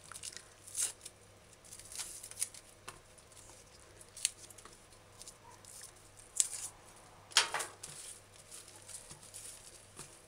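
Scallion being cleaned by hand: scattered short snips, tears and rustles as dying outer leaves are peeled off and the ends trimmed. The loudest, a longer rustle, comes about two-thirds of the way through.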